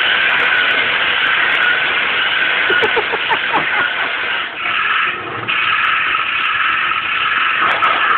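Radio-controlled model tank running as it drives across a wooden floor: a steady engine-like drone with a high whine through it. The whine dips briefly about five seconds in and then carries on a little lower.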